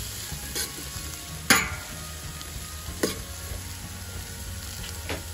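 Sliced white and red onions sizzling in oil and butter in a wide steel pan, stirred with a metal spoon that clinks against the pan four times. The loudest clink, about a second and a half in, rings briefly.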